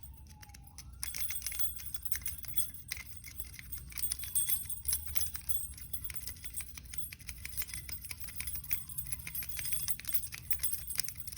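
Lock picks working the pins of an ABUS 55/40 brass padlock: a dense run of small, quick metallic clicks and jingling that starts about a second in and goes on irregularly.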